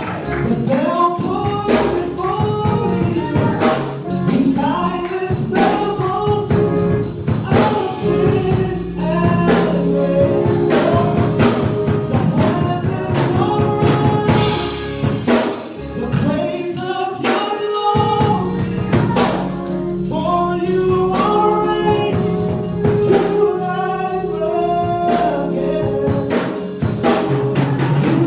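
Live gospel music: singing backed by instruments and a tambourine shaking steadily through it.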